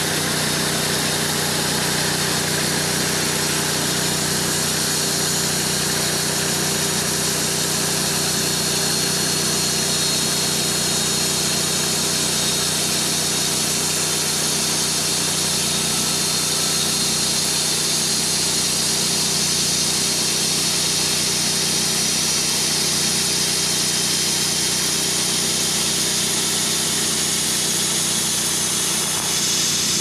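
Band sawmill running steadily under load as its band blade cuts a slab from a tulip poplar log; the sound shifts a little just before the end.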